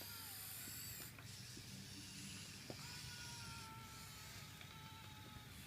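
Small electric motors and gears of a toy remote-control excavator whining faintly as it is operated, the pitch shifting about three seconds in.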